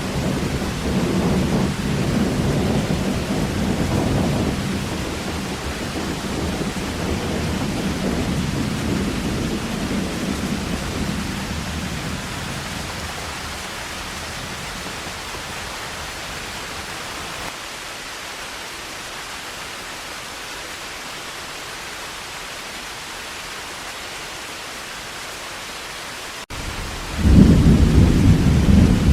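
Heavy rain falling steadily, with a low rumble of thunder that dies away over the first dozen seconds. Near the end, after a momentary drop-out, another loud thunder rumble starts abruptly.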